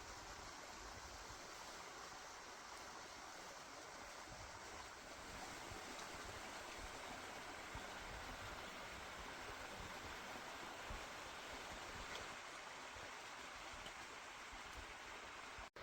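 Faint, steady rushing noise outdoors, with irregular low rumbling from wind on the microphone; it drops out for an instant right at the end.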